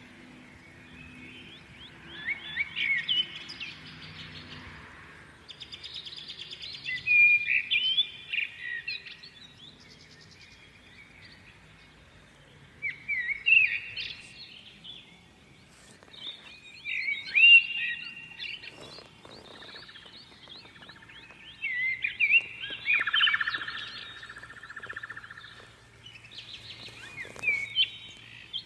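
Songbirds chirping and singing in short bursts of quick, rising and falling notes, a new phrase every few seconds.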